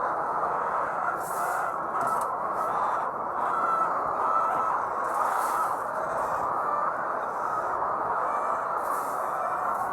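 Steady din of a large flock of laying hens clucking and calling together in a poultry house, with a few brief higher rustles.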